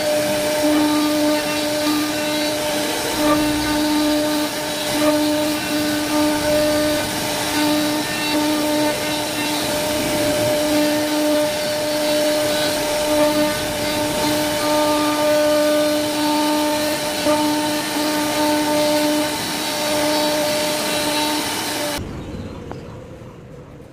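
CNC router spindle running at a steady high whine while its end mill cuts grooves into a wooden panel. The whine cuts off abruptly near the end, leaving a faint hiss that fades away.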